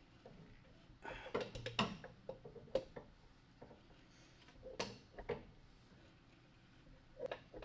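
Light metallic clicks and knocks from hand tools and metal parts being handled, in a few short clusters. The busiest run is about a second in, with more around the middle and one near the end.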